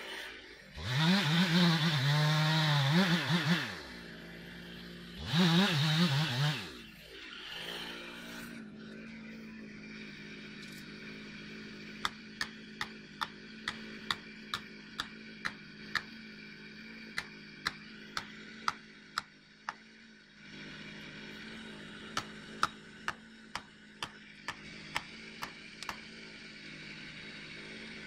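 Chainsaw revved hard twice, then left idling steadily. Over the idle, three runs of sharp blows at about two a second: an axe hammering a felling wedge into the back cut of a standing spruce.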